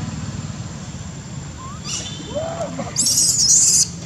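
Baby macaque crying in fright: a few faint squeaks about two seconds in, then a loud, high-pitched squealing cry lasting almost a second near the end.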